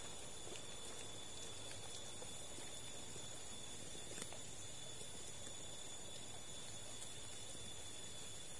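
Quiet forest-creek ambience: a steady hiss with a thin, high-pitched whine throughout and scattered faint ticks.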